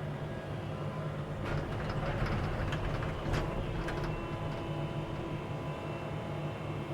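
Excavator engine running steadily with a hydraulic whine. Between about a second and a half and four seconds in, a few sharp knocks and scrapes come from the bucket working against rock.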